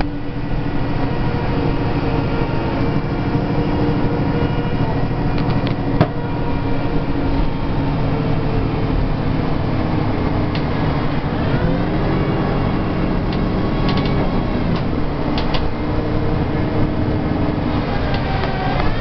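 A 2010 Nova Bus LFS articulated city bus running steadily, heard from inside at the back of the cabin: a loud drone of engine and drivetrain with several held tones. Its pitch rises about twelve seconds in, and there is a sharp click about six seconds in.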